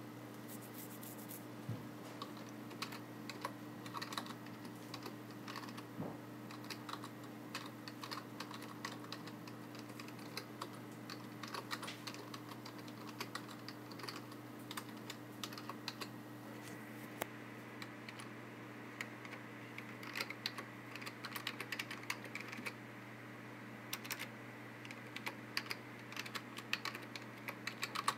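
Typing on a computer keyboard: quick, irregular key clicks in short runs with brief pauses, over a steady low hum.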